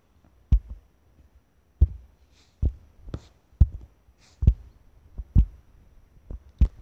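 About nine short clicks and thumps at irregular intervals, from taps on computer controls while the on-screen diagram is zoomed in, with faint brief rustles between them.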